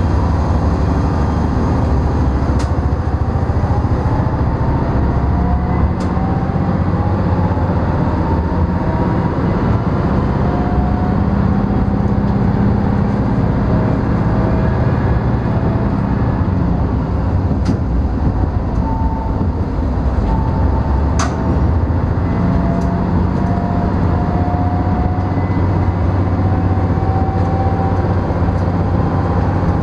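NT100 diesel railcar running along the track, heard from inside the cab: a steady low engine drone with a whine that slowly rises in pitch, and a few scattered sharp clicks.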